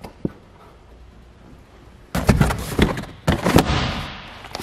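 Knocks and thumps from handling the fibreglass bow seating and underseat storage lids of a jet boat: a click just after the start, then a cluster of knocks about two seconds in and a louder pair about three and a half seconds in, fading into a brief rustle.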